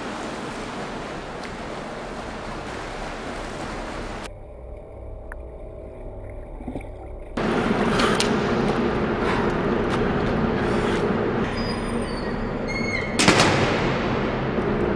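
Water splashing in a swimming pool from a swimmer's strokes and a man surfacing at the edge, under a low steady hum. It is quieter for a few seconds in the middle and louder afterwards, with a sharp loud hit about thirteen seconds in.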